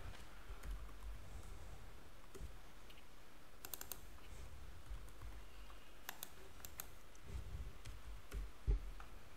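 Faint clicks of a computer mouse and keyboard, in a few short clusters about four and six seconds in, over a low steady hum. A soft thump comes near the end.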